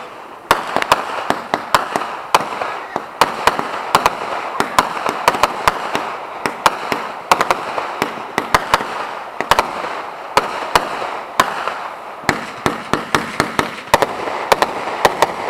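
Fireworks crackling and popping in a dense barrage: many sharp bangs, several a second at irregular spacing, over a steady crackle and hiss.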